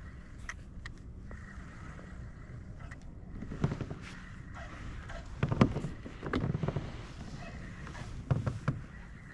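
Kayak handling on the water: four short bursts of knocking and sloshing over a steady faint hum.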